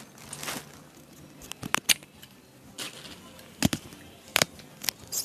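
A small plastic flexible tripod being put back into its packaging: a handful of sharp clicks and taps with soft rustling between them.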